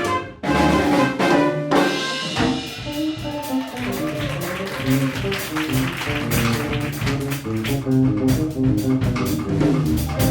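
Afro-Cuban Latin jazz band of trumpet, piano, bass, drums and percussion playing live. A brief break and accented ensemble hits open the passage, then a steady groove with a repeating bass line settles in about two seconds in.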